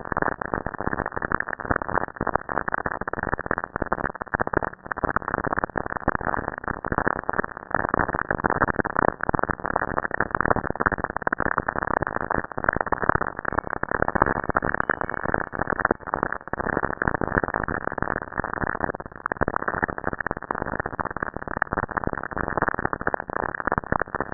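Cassini's radio recording of lightning in Saturn's Great White Spot storm, sped up into audio: a dense, unbroken crackle of static made of countless rapid pops and clicks.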